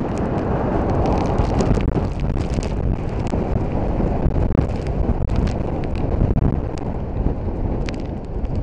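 Hurricane wind buffeting the microphone at an open balcony door: a loud, steady low rumble with scattered crackles.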